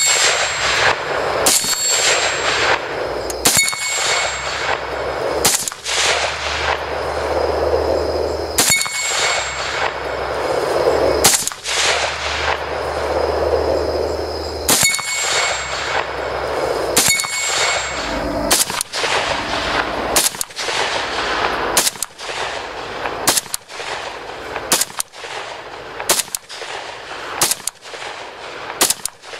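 AK-pattern rifle fired shot after shot, dozens of single rounds, coming quicker in the second half at roughly one and a half a second. Steel plate targets ring after several of the hits.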